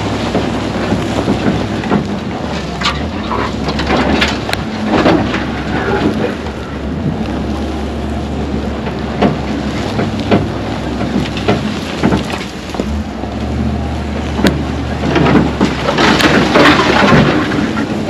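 Wind buffeting a microphone mounted on a pickup truck driving over rough ground, over a low rumble, with scattered knocks and rattles from bumps. The wind noise swells louder near the end.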